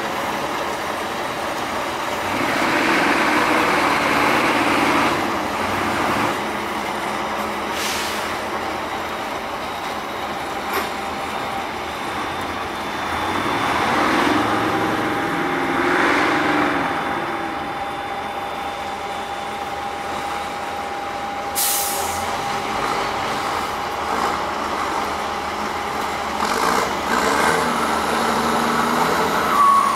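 Tatra 813 8x8 truck's diesel engine running under load as it crawls through mud, revving up and back down twice. A short air hiss, typical of an air brake, sounds about two-thirds of the way through.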